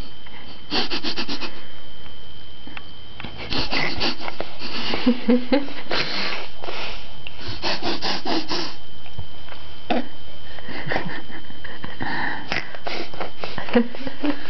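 Baby sniffing through the nose, in quick runs of several short sniffs each with brief pauses between the runs.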